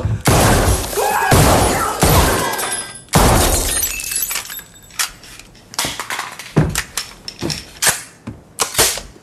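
Glass shattering and crashing for about three seconds, then a second sharp crash that dies away. A string of short sharp knocks and clicks follows.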